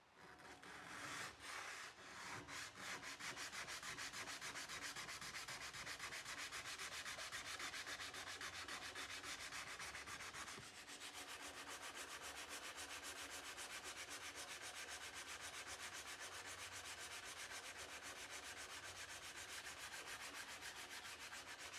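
A steel kukri blade being hand-sanded with a white abrasive pad in fast back-and-forth strokes, about five a second, to take off rust. The strokes get a little quieter about halfway through.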